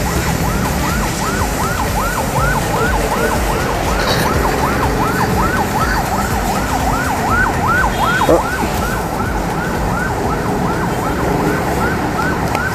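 An electronic siren in a rapid yelp, its pitch sweeping up and down about two and a half times a second without a break.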